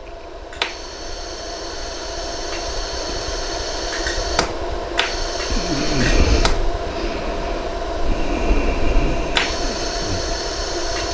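A 100-joule iWeld jewelry laser welder firing single pulses, each a sharp snap, about half a dozen at uneven spacing, as white gold wire is fused onto the prong tips of a diamond ring. Under them runs the machine's steady hiss and hum.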